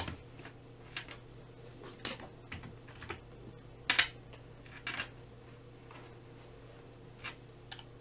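Faint, irregular clicks and taps of a computer mouse and keyboard, roughly one a second, over a steady low electrical hum.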